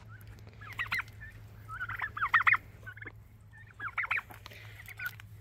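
Domestic turkeys gobbling in several short, rapid, rattling bursts, about a second apart to a couple of seconds apart.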